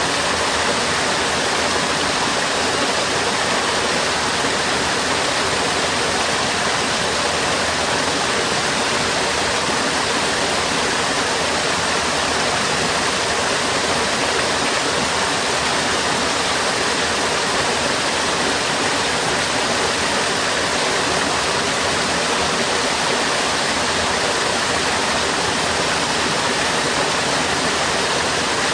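Water flowing steadily through a sewer, a constant rushing wash with no breaks.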